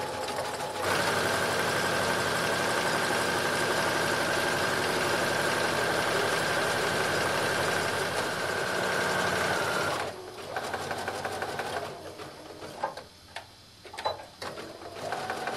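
Sewing machine running steadily with a constant motor whine as it zigzag-stitches along the raw edge of a skirt's side seam to finish it. It starts about a second in and stops about two-thirds of the way through, followed by a few light clicks and rustles.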